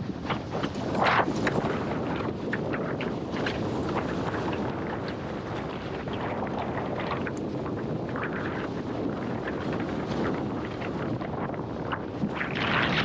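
Strong wind buffeting the camera microphone over water rushing and slapping under a windsurf board sailing in high wind, with short hits of chop and spray; louder gusts about a second in and near the end.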